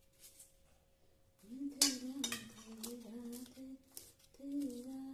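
Kitchen utensils clinking, with one sharp clink about two seconds in and a few lighter taps, while a woman hums a slow tune in long held notes from about a second and a half in.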